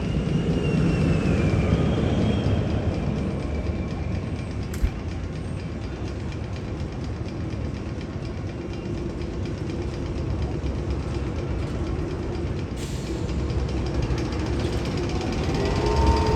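One of the Magnum XL 200 roller coaster's tunnel sound effects: a steady, rumbling, train-like noise. Faint whistling tones sound in the first few seconds, and a single sharp click comes about five seconds in.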